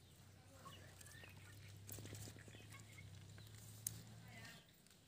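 Near silence: faint clicks and rustles of hands sorting small wet fish in a metal basin, with a few faint bird chirps.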